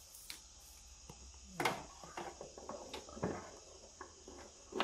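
Scattered light clicks and knocks from audio cables and jack plugs being handled and plugged into a small mixer, about half a dozen in all, the loudest about a second and a half in, over a faint steady hum.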